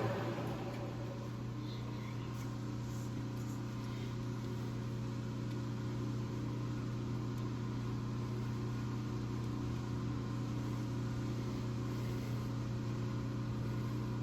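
Lathe running with nothing being cut, a steady even hum from the motor and spindle after the finishing cut on the aluminium has ended.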